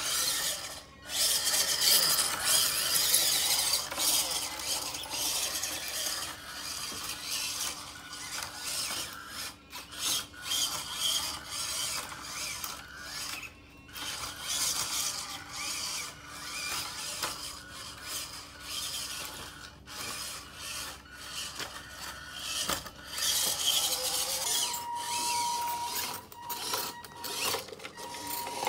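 Radio-controlled model van's small electric drive motor and gears whining and rasping as it drives in stop-start bursts over a wooden floor. A steady high whine holds for a few seconds near the end.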